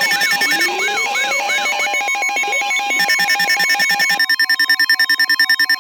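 Layered electronic emergency alert tones: several steady beeping tones stacked together, with siren-like sweeps about three times a second and slower rising glides. About two-thirds of the way through the sweeps stop and the tones turn into a rapid pulsing beep, about five a second.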